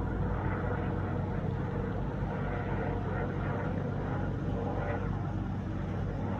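Airliner on landing approach passing overhead, a steady low engine rumble.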